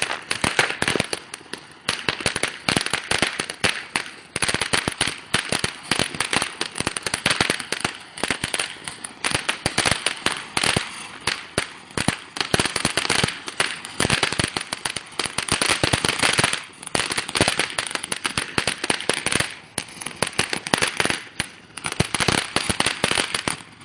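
Two consumer fireworks going off together, a dense, continuous crackling of many rapid pops that swells and eases in uneven surges.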